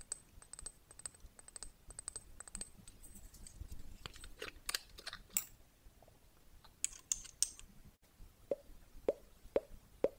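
Fingernails tapping and clicking on a frosted glass dropper bottle, then the dropper cap turned with a short scraping sound. In the last two seconds, drops of serum fall from the glass dropper one by one and plop into a glass bowl, about four of them, each a short rising plip.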